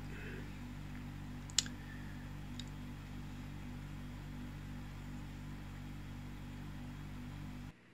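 A small steel shaft coupler with set screws handled in the fingers, giving a sharp click about one and a half seconds in and a fainter one a second later, over a steady low hum.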